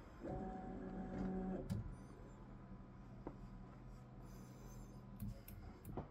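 Voron 3D printer's stepper motors whining for just over a second as the toolhead travels in a homing move, ending in a click. A low steady hum follows, with a few light clicks.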